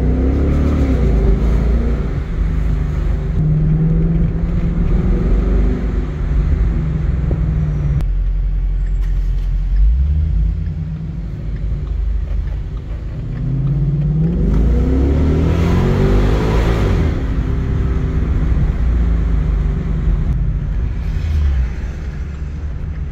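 Ford Mustang GT's V8 engine heard from the cabin, running through the gears. Revs rise briefly near the start, then climb strongly under hard acceleration for several seconds about two-thirds of the way in, before settling back to steady running.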